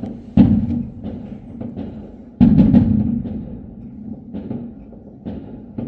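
Fireworks going off: irregular booms, the two loudest about half a second and two and a half seconds in, each followed by a rumbling tail, with smaller bangs in between.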